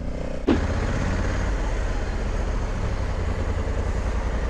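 Honda Africa Twin 1100's parallel-twin engine running at low speed as the motorcycle rolls slowly, a steady, evenly pulsing low rumble with road and wind noise. The sound changes abruptly about half a second in.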